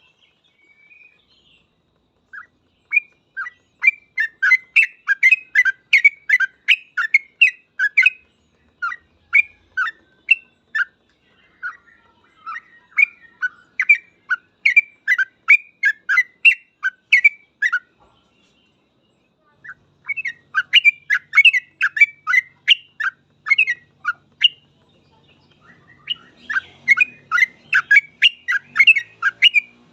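Yellow-vented bulbul (trucukan) singing in long runs of quick, chirpy notes, the rapid non-stop 'ropel' song, breaking off briefly twice.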